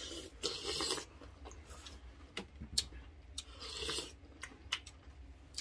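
Close-up eating sounds: crunching bites into crispy fried pork and chewing, with two louder crunches about half a second and about four seconds in and small clicks between.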